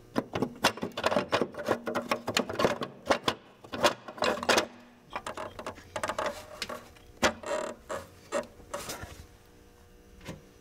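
Irregular clicks, knocks and rattles of a metal water pump being handled and set against the engine block over its gasket and locating dowels, dying away about a second before the end.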